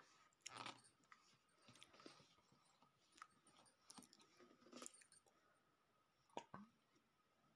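Faint, close-up mouth sounds: scattered wet clicks and short crackly bits as a person chews and swallows pieces of clay and chalk.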